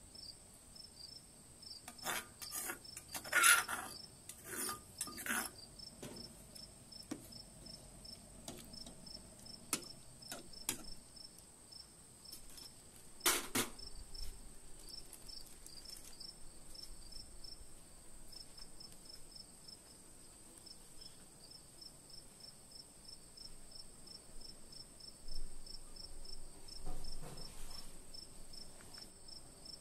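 Crickets chirping in a fast, even pulse. Metal utensil knocks and scrapes on the pot and mortar come in a cluster a few seconds in, with one sharp knock around 13 seconds and softer knocks near the end.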